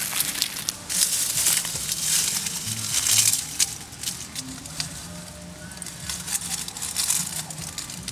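Dry leaf litter and twigs crunching and crackling as dirt is scooped from a small pit and dry sticks are laid over it by hand, in irregular bursts with sharp snaps.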